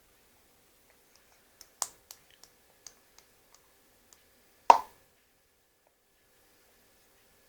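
A run of light clicks and taps, about eight over two and a half seconds, then one much louder sharp knock about five seconds in.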